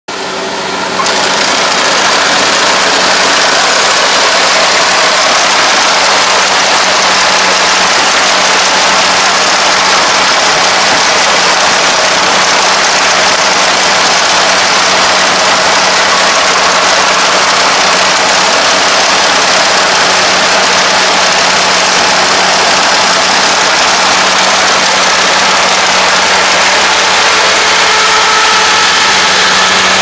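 Kubota ARN460 combine harvester's diesel engine and machinery running steadily while it harvests rice: a loud, even drone with a dense mechanical rush over it. It fades in during the first second.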